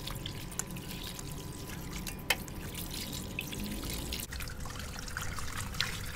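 A thin stream of water pouring into a metal pot while hands rub and rinse raw chicken pieces in it, the water trickling and splashing. A single sharp click sounds about two seconds in.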